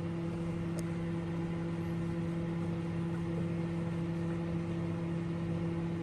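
Sharp R-22A0 microwave oven running: a steady, even hum with no change in pitch or level.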